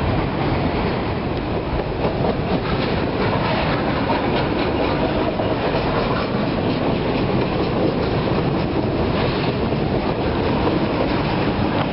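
Freight train of autorack cars rolling past at close range: steady wheel and car noise, with clicks as wheels cross rail joints.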